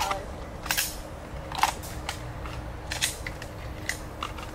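A string of sharp cracks and clicks at uneven intervals, the loudest about one and a half seconds in.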